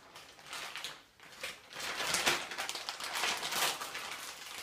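Plastic packaging rustling and crinkling as it is handled, with a short lull about a second in.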